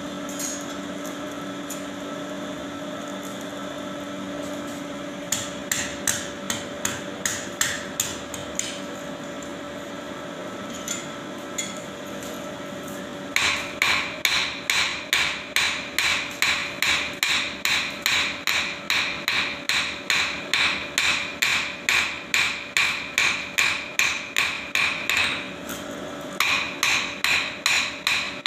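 Blacksmith's hand hammer striking a red-hot axe head on an anvil. A few scattered blows come first, then from about halfway in there is steady hammering at about two ringing strikes a second, with a short pause near the end. A steady low hum runs under the first few seconds.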